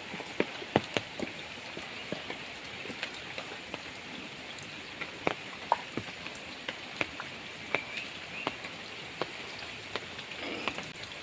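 Rain falling, with irregular sharp taps of heavy drops striking close by over a steady hiss.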